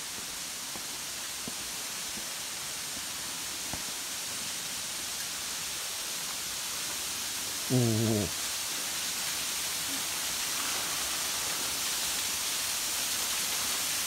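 A straight-drop waterfall rushing steadily, growing slightly louder. About eight seconds in, a person lets out a short "oh".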